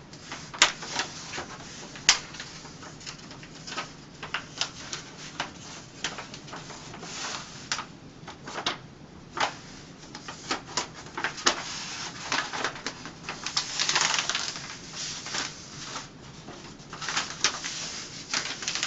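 Wax paper backing of a wall wrap being folded and creased by hand, crackling and crinkling in irregular sharp clicks, with a longer rustle about two-thirds of the way through.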